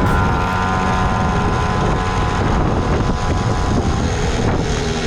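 Pocket bike's small engine running, its pitch holding steady, then sagging and turning ragged in the middle before steadying again near the end. There is wind noise on the microphone.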